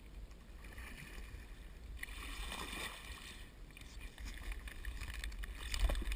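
A pop-bottle kayak coming out of the water onto a concrete boat ramp: water splashing and scraping, with a steady low rumble of wind on the helmet camera's microphone. A sharp knock near the end is the loudest sound.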